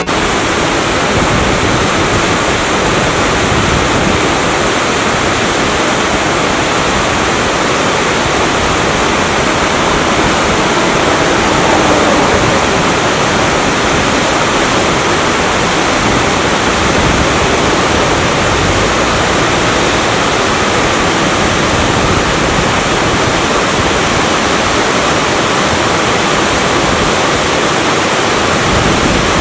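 A waterfall pouring about five metres down a rock face into a deep plunge pool, a loud, steady rush of falling water.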